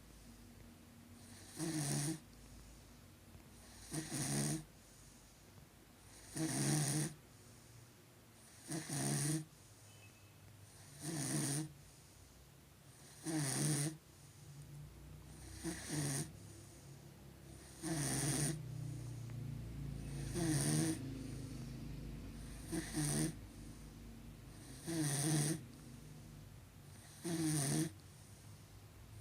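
Dog snoring in deep sleep: a steady, regular rhythm of snores, one about every two and a quarter seconds, about twelve in all.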